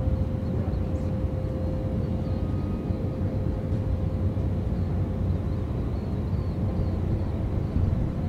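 Low, steady rumble of a Boeing 787 airliner's jet engines on final approach, still some distance off, with a thin steady hum above it.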